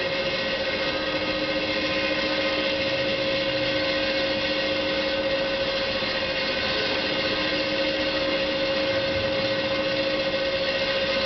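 Industrial continuous roaster running: a steady mechanical hum with a constant mid-pitched tone over an even hiss, as its rotating arms stir the kernels in the roasting chamber.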